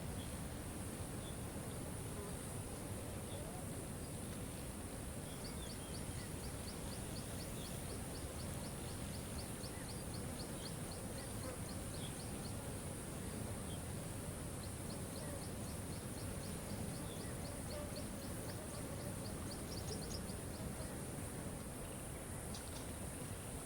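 Waterfall rushing steadily under a constant high drone, with a high ticking call repeated about three times a second in two long runs through the middle.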